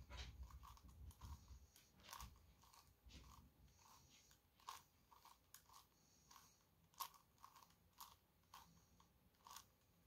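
Plastic clicks and clacks of a Gigaminx (a 5x5-per-face dodecahedron twisty puzzle) being turned by hand, in quick irregular turns with a few sharper snaps, during the last moves of a solve.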